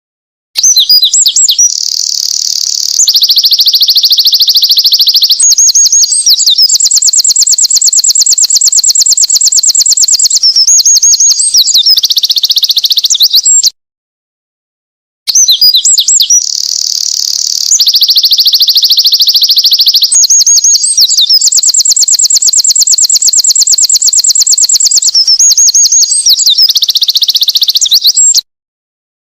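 Winter wren singing: two long, high-pitched songs of rapid trills and tumbling notes, each about 13 seconds, separated by a short dead silence, the second a repeat of the first.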